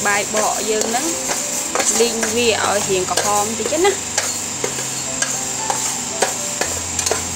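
A metal spoon stirring and scraping dry split mung beans as they toast in a metal pan, the beans rattling and hissing against the pan with many small clicks.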